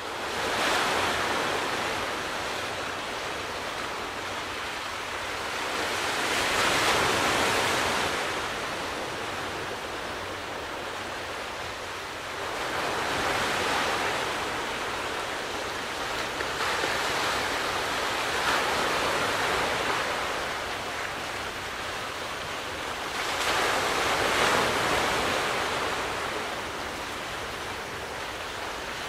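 Sea waves breaking and washing ashore, a steady rush of surf that swells and eases about every five to six seconds.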